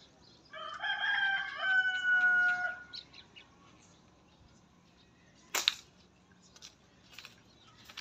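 A rooster crows once, a call of about two seconds that ends in a long, slightly falling note. About five and a half seconds in there is a single sharp snap, followed by a few faint clicks.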